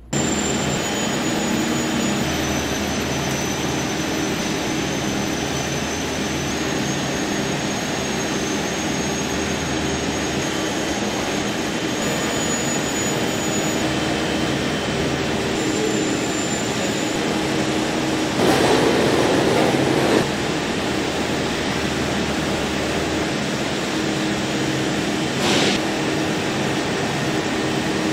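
Steady machinery and ventilation noise of a food processing room: a dense rush with a few steady hum tones. A louder rush lasts about two seconds about two-thirds through, and a short hiss comes near the end.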